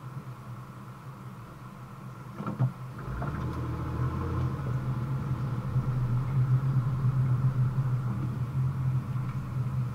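A car's engine and road noise heard from inside the cabin, a low steady hum that gets louder about three seconds in as the car pulls away from a stop.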